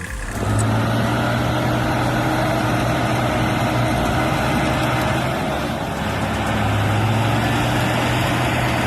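Tractor engine running steadily with a low, even hum, easing off slightly about six seconds in.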